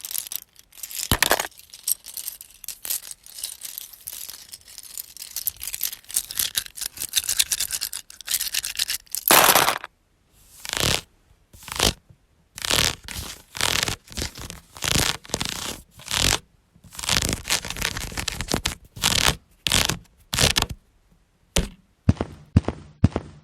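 Lego bricks scraped and rubbed together as homemade sound effects: a continuous rasping scrape with clicks for about ten seconds, then a string of short separate scrapes, and quicker sharp clicks near the end.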